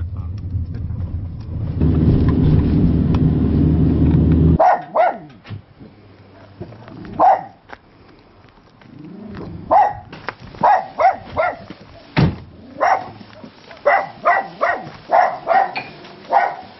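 A car engine running, heard from inside the car, louder from about two seconds in, until a sudden cut a little over four seconds in. Then a dog barks again and again, in quick runs of barks toward the end, with one sharp knock between them.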